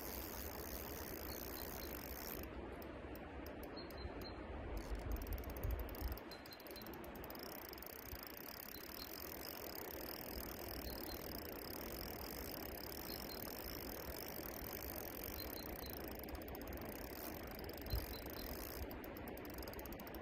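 Spinning reel clicking lightly while a hooked fish is played on a float rod, over a steady outdoor hiss. A short low rumble about five seconds in and a single knock near the end.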